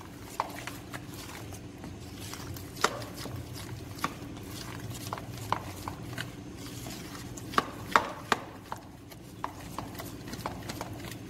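A spoon stirring thick gram-flour batter in a bowl, with irregular clicks and taps as it knocks and scrapes against the bowl's sides. A steady low hum runs underneath.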